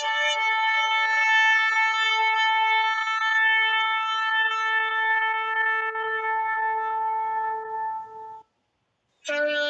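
A shofar blown in one long, steady held note lasting about eight seconds, which tails off and stops. Near the end a new blast begins at a lower pitch.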